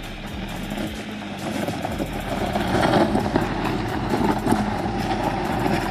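A small hatchback car's engine running as it tows a heavy tractor tire on a rope across dry dirt and gravel. A rough scraping rush of the tire dragging over the ground builds about a second and a half in and stays loud.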